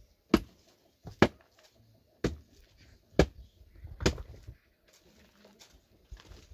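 Five sharp blows about a second apart, like a tool striking in a steady work rhythm, followed by a few fainter knocks.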